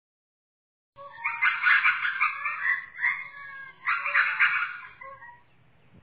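An animal calling in rough, rapidly pulsed calls, in two long bouts starting about a second in and again near four seconds, then trailing off faintly.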